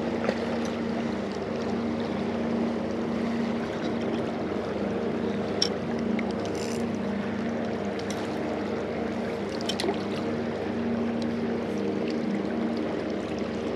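Steady rush of a shallow, fast river current, with a low steady hum under it. A few small clicks come now and then, about a third and two-thirds of the way through.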